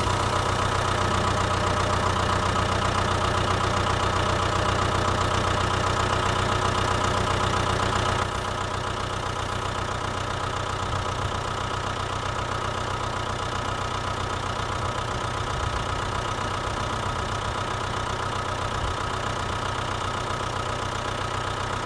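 Steady idling engine drone with a strong low hum, running evenly and dropping slightly in level about eight seconds in.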